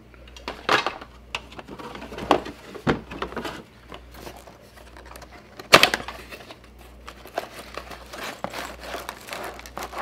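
Cardboard box and plastic parts bags being handled: rustling, scraping and scattered small knocks, with one sharp, loud click or knock about six seconds in, as a small accessory box is opened and its bagged parts tipped out.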